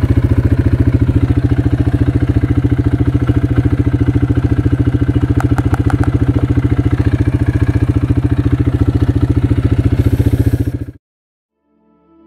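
Quad bike engine running at a steady speed with a fast, even pulsing beat, heard up close while riding, with a few quick clicks about halfway through. It cuts off abruptly near the end, and faint music starts to fade in.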